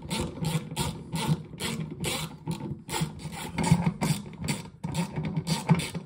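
Hand-turned T20 Torx driver backing out the screws of a microwave turntable motor from the sheet-metal cavity floor: short rasping scrapes of bit and screw against metal, about three a second, as the hand twists the driver.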